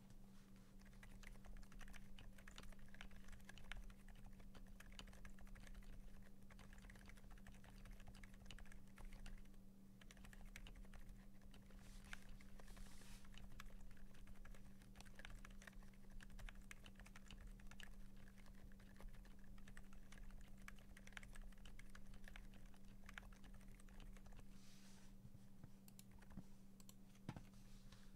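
Continuous typing on a custom mechanical keyboard with lubed Durock Dolphin linear switches in a brass plate, PBT keycaps and foam in the case: a steady run of closely spaced keystrokes.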